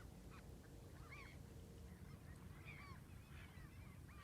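Faint calls of a flock of birds: many short, overlapping honking calls, several a second, over a low steady rumble.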